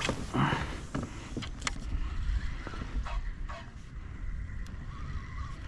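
Kayak underway across the bay: a steady low rumble of wind and water moving past the hull, with a few light knocks.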